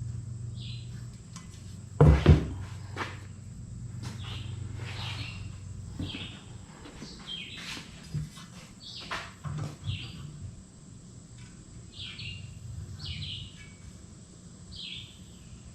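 Small birds chirping over and over, with one sharp knock about two seconds in and a few lighter clicks and knocks from hand work on the pressure washer. A low hum runs for the first few seconds.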